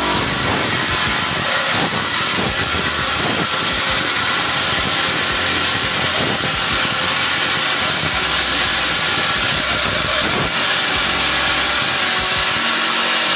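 Homemade table saw, a salvaged jet-pump electric motor belt-driving a 7-inch circular blade, ripping lengthwise through a board over 4 cm thick with a steady, unbroken cutting noise. The blade is dull, so the cut goes slowly.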